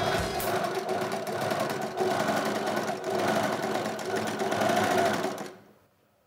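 Sewing machine running steadily, its level swelling and dipping, then stopping suddenly about five and a half seconds in.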